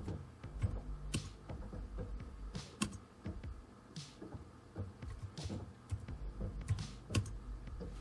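Computer keyboard being typed on: a scattered series of key clicks, about one a second, as a login password is entered.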